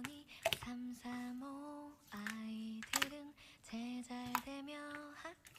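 A single voice singing a slow melody, holding each note steadily for about half a second and stepping between pitches, with short breaks and sharp consonant-like onsets between phrases.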